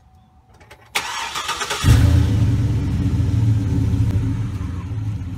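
2005 Cadillac Escalade's 6.0-litre V8 cranked over by the starter for just under a second, then catching about two seconds in and running steadily at idle.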